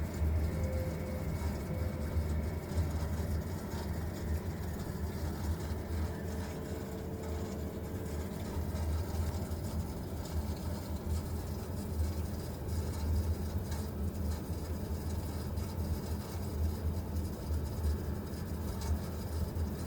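Vaillant VUW 202/2-3 R2 wall-hung gas boiler running with the strange noise it is recorded for: a steady low drone that flutters rapidly.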